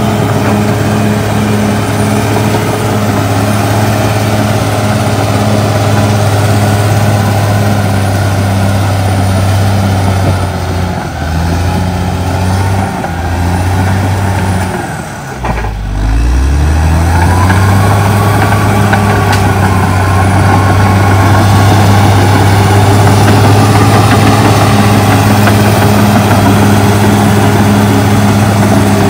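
CAT D6R XL bulldozer's diesel engine running hard as the dozer pushes through brush. About halfway through, the engine note dips and its pitch falls sharply, then climbs back and runs steady again.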